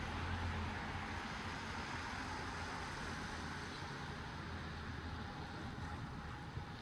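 Steady hiss of light rain falling, with a low rumble underneath that fades away in the first second or two.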